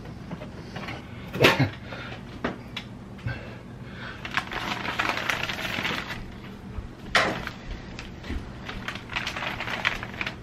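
Handling noise: two loud sharp clicks, one early and one about seven seconds in, with a clear plastic bag crinkling and rustling as the packaging of a new oven bake element is cut open with scissors and handled.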